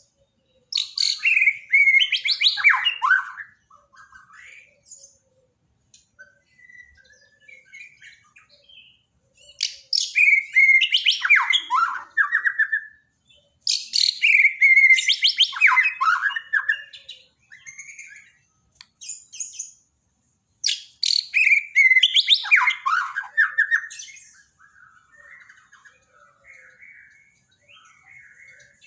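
White-rumped shama of the Borneo race (murai batu borneo) singing: four loud, varied song phrases of two to three seconds each, with soft chirps and calls between them.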